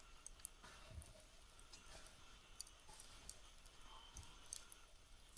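Near silence with faint, scattered, irregular clicks and ticks.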